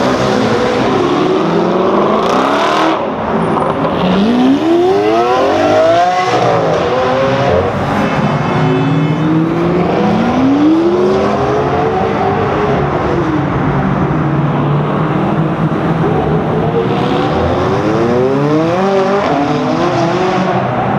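High-performance car engines revving and accelerating in a road tunnel, the engine pitch climbing and falling back several times.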